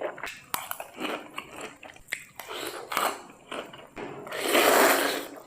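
Close-miked eating: a person biting and chewing food, with a run of short, sharp crunches and one longer, louder crunch about four seconds in.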